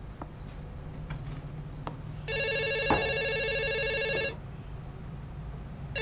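Corded desk telephone ringing: one ring of about two seconds, with a single knock partway through it, then a brief second ring near the end.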